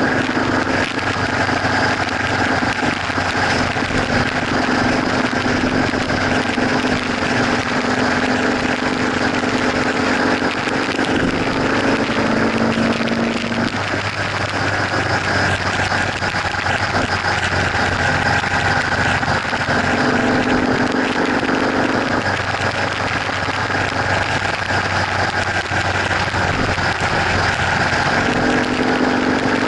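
Motorcycle engine running steadily at freeway cruising speed, its note shifting about halfway through and again later, over steady wind and road noise.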